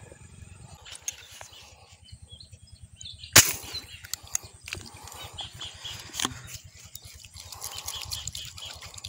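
Handling sounds from an angler working a handline: one sharp knock about three and a half seconds in, the loudest sound, with lighter scattered clicks and rustling around it.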